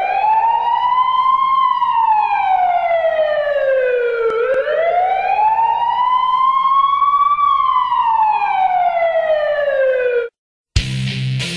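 Ambulance siren wailing: a slow rise and fall in pitch, two full cycles, then cutting off abruptly. After a brief gap, music starts near the end.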